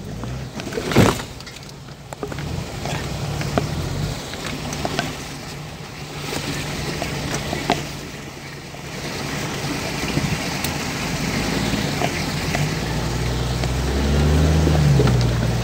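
Toyota Land Cruiser 100's engine running at low revs as the truck crawls over rocks, heard from inside the cab, with scattered knocks and clunks, a sharp one about a second in. The engine revs up near the end.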